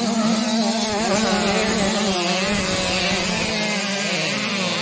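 A field of 85 cc two-stroke motocross bikes revving together, many engine pitches rising and falling over one steadier low note that drops near the end.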